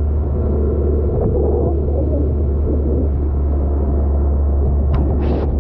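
Inflatable dinghy under way: a steady low rumble of its motor together with water rushing along the hull and wind on the microphone. A brief hiss of spray comes about five seconds in.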